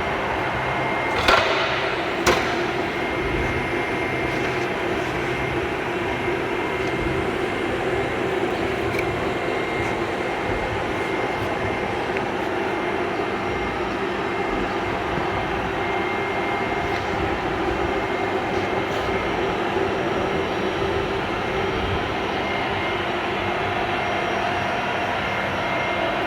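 A steady machine drone, unchanging in level, with two sharp clicks about a second apart near the start.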